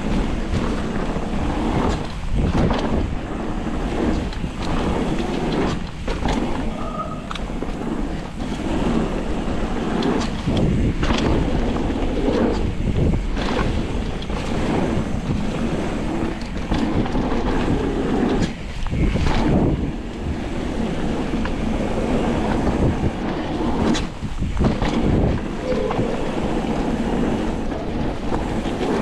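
Mountain bike riding fast down a dirt jump trail: tyres rumbling over the dirt, wind rushing over the microphone, and frequent knocks and rattles of the bike over bumps and jump landings.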